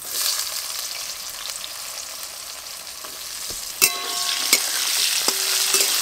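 Potato pieces sizzling in hot oil in a steel kadai, the sizzle starting suddenly as they go into the pan. From about four seconds in, a metal spatula stirs them, scraping and knocking on the pan with short ringing tones.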